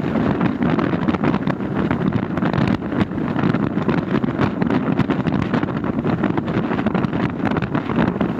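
Steady rumble of a moving vehicle, with wind buffeting the microphone and frequent short crackles.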